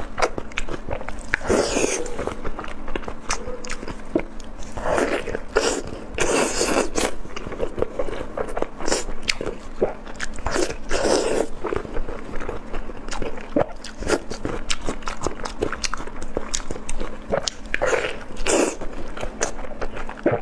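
Close-miked biting and chewing of intestine bundles, with many sharp clicks throughout and several louder bites.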